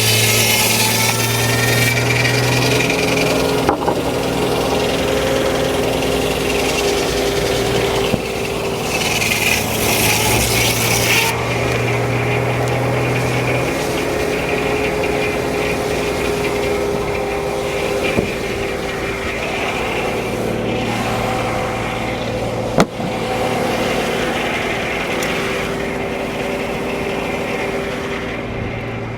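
Frick No. 1 circular sawmill running, with a steady mechanical drone under stretches of the blade cutting through the log, which set in and drop away, the longest ending sharply about eleven seconds in.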